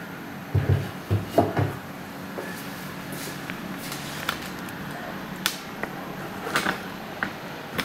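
A few dull thumps about half a second to a second and a half in, then scattered light clicks and taps: the handling knocks of the printed cloth being put up against the wall.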